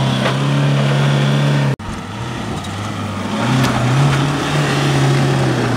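Isuzu D-Max V-Cross pickup's diesel engine pulling under load as the truck crawls up through a deep dirt rut, its revs rising and falling. The sound cuts out for an instant a little under two seconds in.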